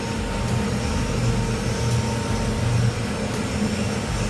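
Oil-fired boiler burner running steadily on No. 2 fuel oil at low fire: a steady low hum with an even rushing noise from the burner's blower and flame.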